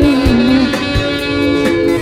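Instrumental break of a pop song: sustained guitar and synth chords over a steady drum beat, with the last sung note fading about half a second in.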